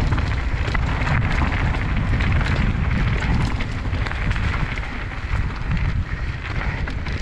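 Mountain bike riding down a rough, rocky trail: wind buffeting the microphone in a steady low rumble, with the tyres and bike rattling over rocks and roots in a constant run of clicks and knocks.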